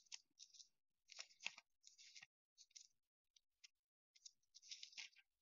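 Faint rustling of paper, as of book pages being leafed through, in a string of short scratchy bursts.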